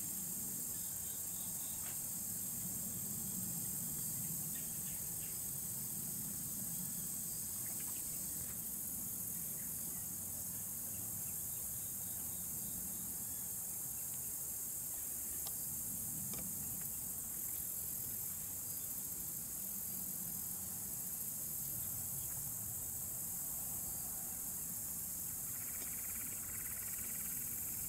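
Steady high-pitched chorus of insects in the field, unbroken throughout, over a low rumble of background noise.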